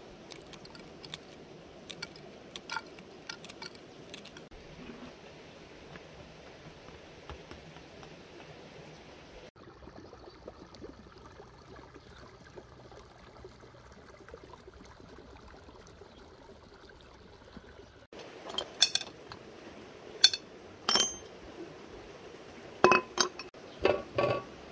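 Cookware and dishes clinking and knocking: faint scattered taps at first, then several sharp clinks with a brief ring over the last few seconds.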